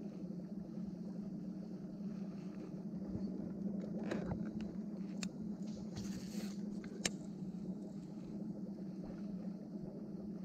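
Baitcasting reel clicking and its spool whirring briefly around the middle as the lure is recast, over a steady low hum.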